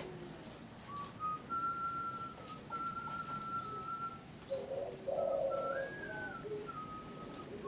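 Spotted dove (local derkuku) cooing about halfway through, over a thin, steady high whistle that comes and goes from about a second in.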